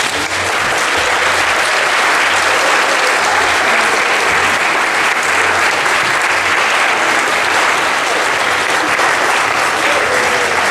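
Audience applauding: loud, steady clapping from many people.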